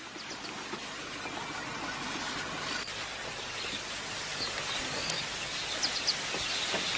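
Outdoor ambience: a steady hiss of background noise with a few short, high bird chirps scattered through it.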